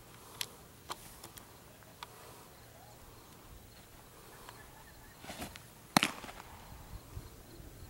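A baseball pitch caught: one sharp, loud pop of the ball into the catcher's mitt about six seconds in, just after a short scuffle. A few light ticks come in the first two seconds, over a faint outdoor hush.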